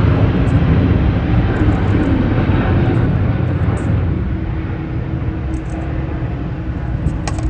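Jet airliner engines rumbling, loud at first and slowly fading; a steady low hum joins in about halfway through.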